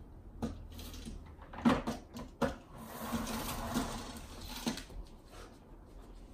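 A mop and its bucket being handled: a few sharp knocks and clatters, then about two seconds of steady whirring rattle, as of a spin mop being spun in its bucket.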